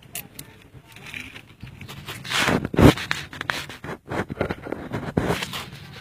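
Close scraping and rubbing noises, with a heavy bump just under three seconds in.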